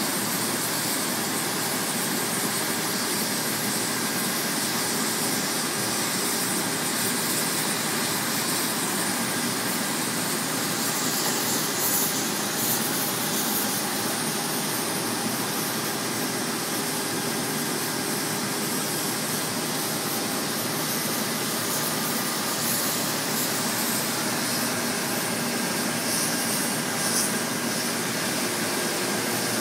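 Oxy-fuel cutting torch running steadily as it cuts through steel plate: a continuous, even hiss.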